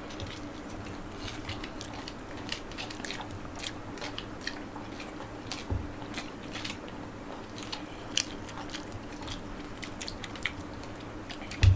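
Close-up eating sounds: irregular wet clicks and smacks of biting and chewing spicy Maggi instant noodles, over a faint steady low hum.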